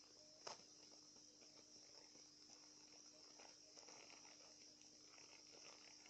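Near silence with faint rustling and crinkling of plastic packaging being opened by hand, and one small click about half a second in, over a steady high hiss.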